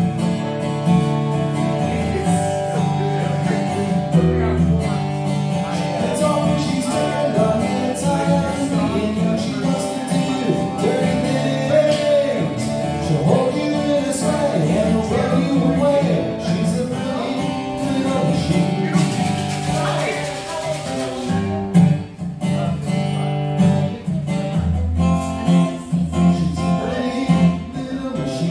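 Acoustic guitar strummed in a live solo song, with a man's voice singing over it in the middle part.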